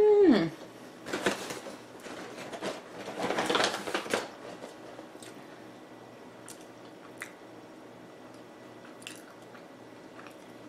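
Close-up chewing of a bean, cheese and guacamole taco with the mouth closed, opening with a short hummed "mm". The chewing is loudest in the first four seconds, then drops to quiet mouth sounds with a few small clicks.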